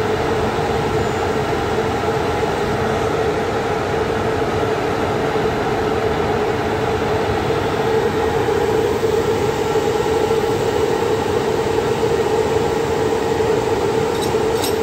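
Softronic Phoenix electric locomotive standing at the platform with its pantograph up, its on-board machinery running: a loud, steady hum with one strong tone over a mechanical rumble.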